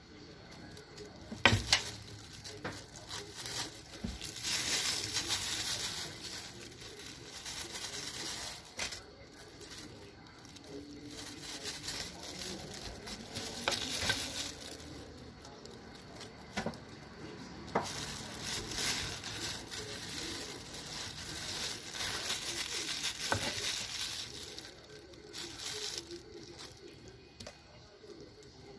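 A kitchen knife scraping and cutting into a peeled pineapple, mixed with the crinkle of thin plastic gloves. The scraping comes in stretches of a few seconds, broken by a few sharp clicks of the blade, the loudest about a second and a half in.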